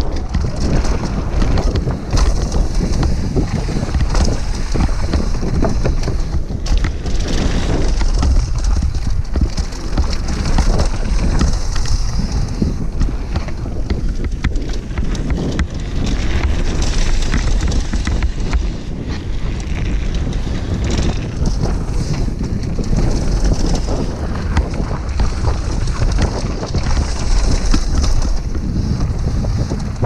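Wind buffeting the action-camera microphone on a fast downhill mountain-bike descent, over the rolling of tyres on a dry dirt trail and a continual clatter of knocks and rattles from the bike over rough ground.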